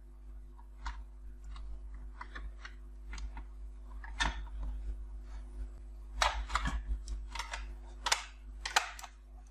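The metal cover of a network video recorder being handled and fitted back onto its case: a run of light clicks and knocks, with a louder cluster of rattling knocks a little past the middle and two sharp knocks near the end.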